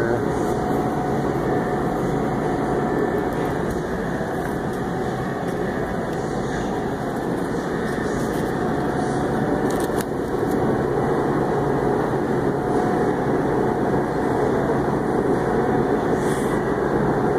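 Steady hum and rush of air from the fans and cooling unit of an open refrigerated supermarket meat case, with faint steady tones running through it and a single click about ten seconds in.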